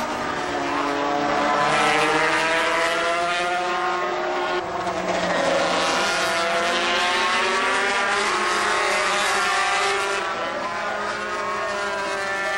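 Two-stroke 250 cc Grand Prix racing motorcycles at full race pace, several engines heard together. Their pitch falls and rises again as the bikes brake into corners and accelerate out, and there is an abrupt change about four and a half seconds in.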